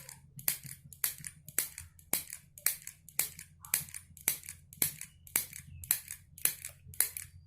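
Handheld mini sewing machine clicking shut with each squeeze, about two stitches a second in a steady rhythm, with a sound like a stapler as it chain-stitches through cloth.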